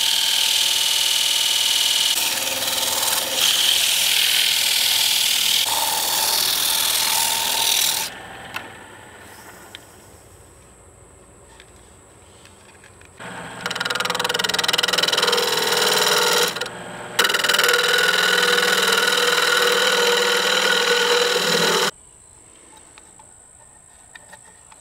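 Sandpaper rubbing against a wooden reel blank spinning on a wood lathe: a loud, steady, rasping hiss. It stops about eight seconds in, comes back about five seconds later for another eight seconds or so, then stops.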